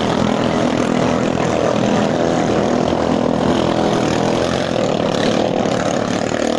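Engines of racing ketinting longtail boats running flat out, a steady buzzing drone.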